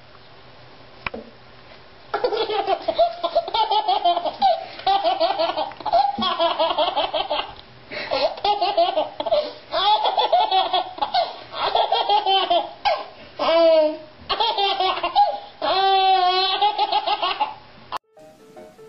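A baby laughing hard in repeated bursts of giggles and belly laughs, a few of them high, wavering squeals. The laughing starts about two seconds in and cuts off shortly before the end.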